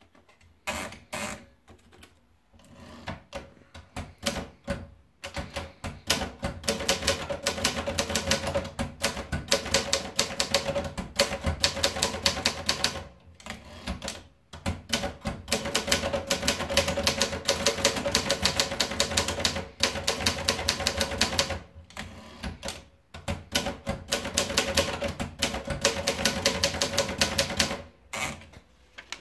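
Olympia Progress portable manual typewriter being typed on: fast runs of key strikes, broken a few times by short pauses.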